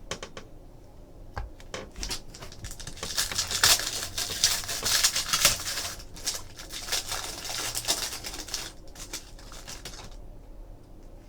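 Trading cards being handled: quick scratchy rustling and clicking of card stock and plastic, busiest in the middle and thinning out near the end.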